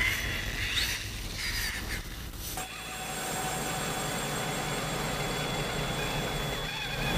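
Traxxas Summit radio-controlled truck's electric motor and geared drivetrain whining, wavering in pitch for the first couple of seconds. About two and a half seconds in the sound changes abruptly to a steadier whine.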